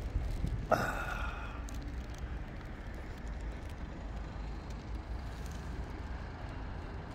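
Steady low rumble of city road traffic. Near the start, a short ringing tone sounds and fades away within about a second.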